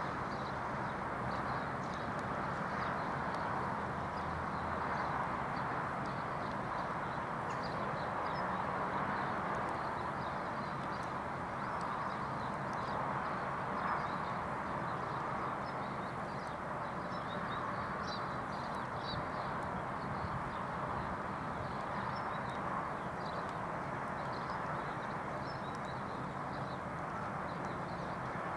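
Level-crossing warning bell ringing on and on while the barriers are down and the red lights flash, with birds chirping.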